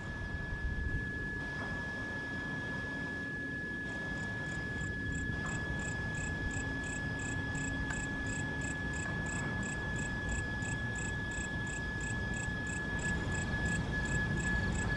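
Night insects calling: one holds a steady, unbroken high trill, and from about four seconds in another chirps in quick, regular pulses, over a low rumbling background.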